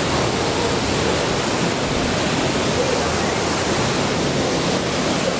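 A waterfall close by in a narrow rock gorge, a steady loud rush of falling water with the stream running over stones below it.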